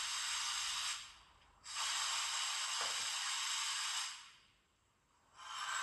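ESU sound decoder in a Märklin H0 Krokodil (Ce 6/8) model locomotive playing its coupling sound through the model's small loudspeaker: bursts of hissing compressed air. The first lasts about a second, the second about two and a half seconds, and a third starts near the end.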